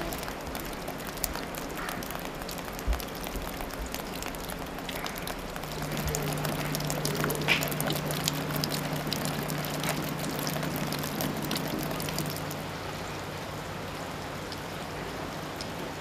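Steady patter of water dripping and trickling off ice, with scattered small ticks of drops. A low steady hum comes in about six seconds in and stops about twelve seconds in.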